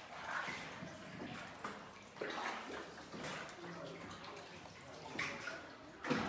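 Water splashing and lapping around a small boat moving through a flooded cave passage, in uneven splashes.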